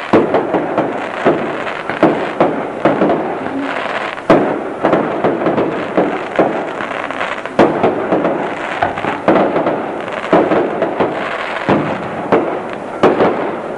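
Fireworks going off in quick succession: a string of sharp bangs, about one or two a second, over continuous crackling.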